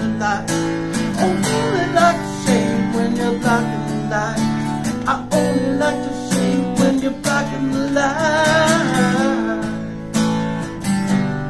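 Acoustic guitar strummed steadily with a pick. A man's singing voice holds long, wavering notes over it, most strongly about eight to nine seconds in.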